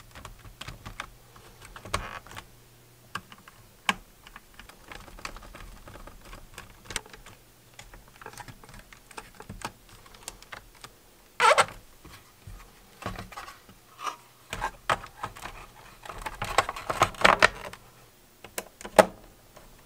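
Plastic clicking, rattling and knocking as a Radio Shack DX-440 shortwave receiver is handled and its plastic case halves are fitted back together over the circuit board. Small irregular clicks, with one louder knock about halfway through and a busier run of clicks near the end.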